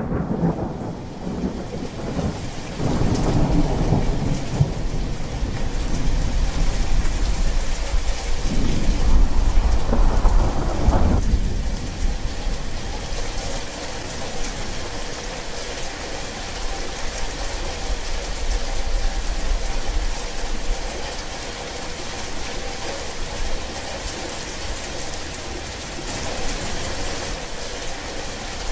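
Steady rain falling, with thunder rumbling twice in the first eleven seconds or so, the second rumble the louder. After that, rain alone.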